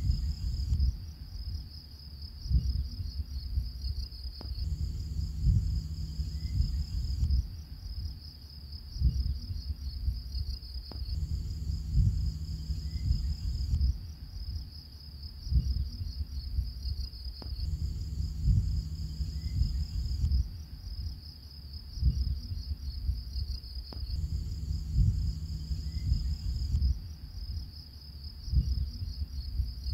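Looped ambient soundtrack of steady cricket-like chirring over soft low pulses. A higher layer switches on and off, and the whole pattern repeats about every six and a half seconds.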